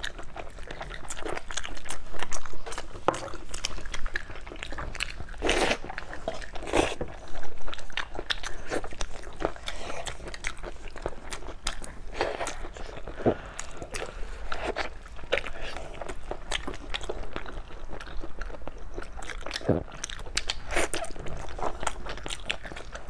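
Close-up eating sounds of braised chicken feet being bitten and chewed: wet bites and chewing with small crunches of the feet's cartilage, as irregular clicks with a few louder bites along the way.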